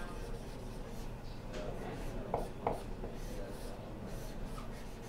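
Dry-erase marker scratching and rubbing on a whiteboard as a circuit diagram is drawn, with two short, sharper strokes about two and a half seconds in.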